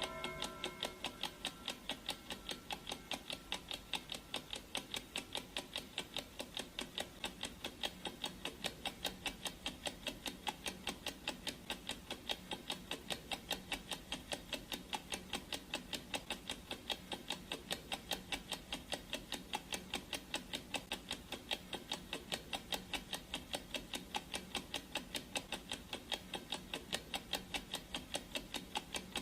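Clock ticking sound effect: a fast, even, unbroken run of sharp ticks. In about the first second the ringing tail of a gong stroke fades out under the ticking.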